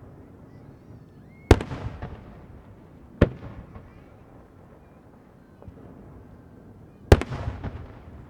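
Aerial firework shells bursting: two heavy booms, each followed by a long rolling rumble of echo, and between them a single sharper crack.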